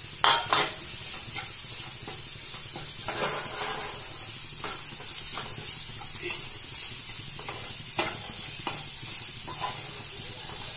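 Wooden spatula stirring and scraping coarsely ground chana dal and onions around a non-stick frying pan, over a steady sizzle of frying, with scattered scrapes and knocks and one sharp knock near the start.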